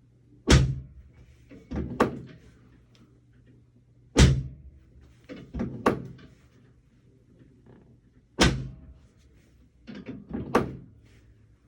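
Chiropractic drop table's pelvic section slamming down under a drop-table adjustment of the pelvis, meant to correct a short right leg. Three loud thunks come about four seconds apart, each followed a second or so later by a pair of lighter knocks.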